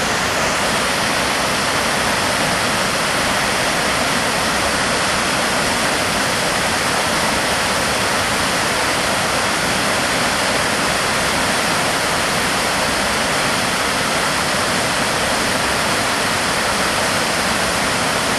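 Waterfall pouring: a steady, loud rush of falling water that holds even throughout.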